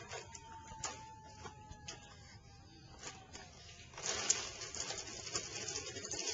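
Plastic ride-on toy's wheels rolling and crunching over loose ground cover. A few scattered clicks come first, then a steady crackle starts about four seconds in as the toddler rides it.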